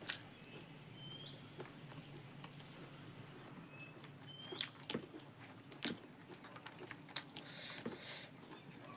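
Close-mic eating sounds: chewing and biting pork and rice, with wet mouth clicks and smacks. A sharp click right at the start is the loudest sound, and a few more clicks come in the second half.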